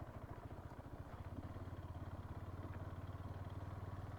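Motorcycle engine running at a low, steady speed, with an even, rapid pulsing from its exhaust.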